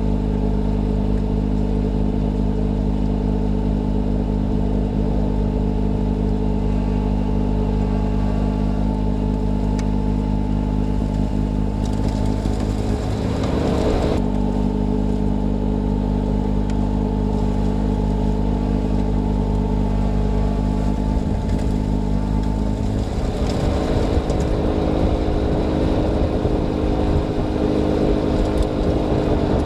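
John Deere 6110R tractor's diesel engine running steadily while driving a snow blower, with a short rush of noise about 13 seconds in and a rougher, noisier stretch from about 23 seconds on.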